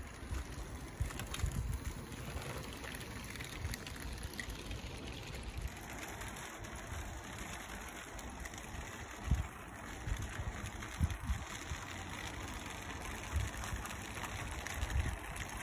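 Wind gusting on the microphone, over the faint running of a 16mm-scale model locomotive and wagons on garden-railway track.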